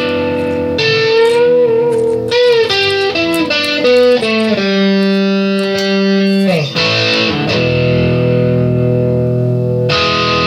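Electric guitar music played through effects: sustained lead notes with bends, a long held note that slides down about six and a half seconds in, then a ringing chord.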